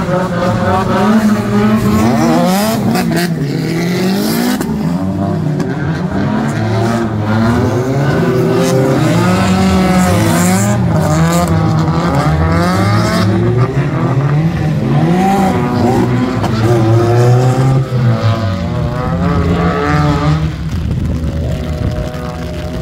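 Drift car engines revving hard and falling away again and again as the drivers feather the throttle through slides on a wet track. The sound fades somewhat near the end as the cars move off.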